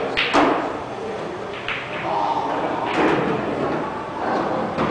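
Snooker balls clicking on nearby tables: a few separate sharp knocks, about a second or more apart, over low chatter and the echo of a large hall.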